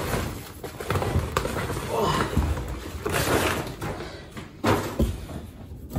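Woven plastic shopping bag rustling and crinkling as groceries are rummaged for and pulled out of it, with a few sharp knocks from items being handled.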